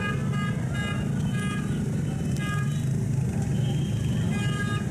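Jammed street traffic: a steady low rumble of idling rickshaw and motorcycle engines under many short horn beeps, several in quick succession, with a lull around the middle.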